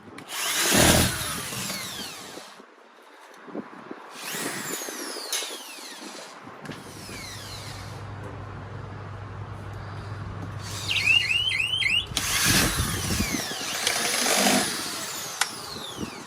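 Electronic alarm siren sounding in bursts of falling, sweeping tones, with a quick run of five rising chirps about eleven seconds in.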